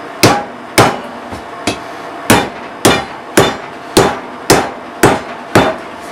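Hammer driving a wooden wedge into the top of an axe handle to lock the head tight on it. About nine sharp, evenly spaced blows, roughly two a second, with a couple of lighter taps between the second and third.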